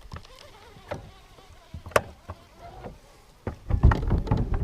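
Knocks and thumps inside the boat, a striped bass thrashing and trying to jump in the live well. There is a sharp knock about two seconds in, and a burst of heavier thumping starts near the end.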